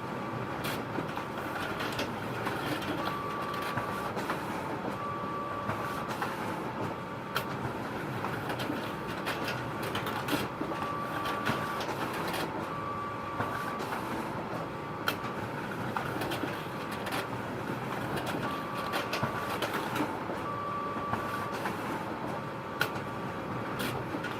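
Photocopier running continuously: a steady mechanical whir with scattered sharp clicks, and a short high tone that sounds in pairs every few seconds.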